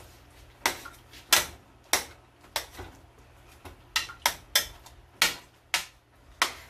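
A metal spatula knocks and scrapes against a stainless steel pot as glutinous rice is mixed into coconut milk. There are about a dozen sharp clanks at uneven intervals.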